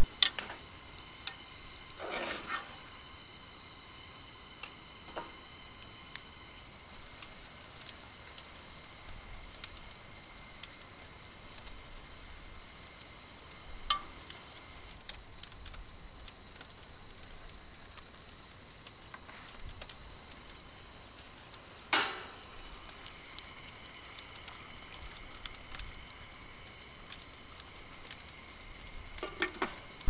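Curry simmering in a saucepan on a portable gas stove: a low steady sizzle, with scattered clicks and knocks of utensils and containers, the loudest about 2, 14 and 22 seconds in.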